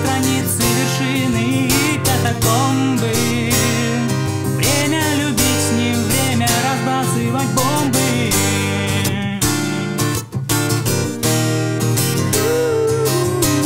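Acoustic guitar, capoed, strummed in a steady rhythm on Em and then C chords, with a man singing a Russian rock song over it. The singing stops about nine seconds in, leaving the strumming, and a voice comes in briefly again near the end.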